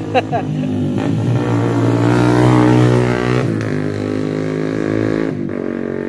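A motor vehicle's engine running, getting louder to a peak between two and three seconds in, then easing off, with a change in its pitch about three and a half seconds in and again near the end.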